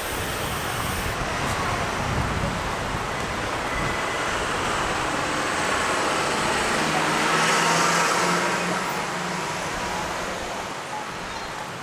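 Street traffic: a vehicle passing, its tyre and engine noise swelling to a peak about two-thirds of the way through, then fading.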